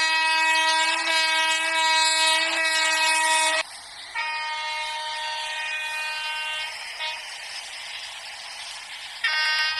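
Train horn sounding in long, steady blasts. The first cuts off about three and a half seconds in, a fainter blast follows, and a loud one starts again near the end.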